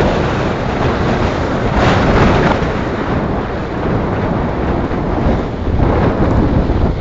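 Strong wind buffeting the microphone on a moving camera: a loud, rumbling rush that swells and eases in gusts.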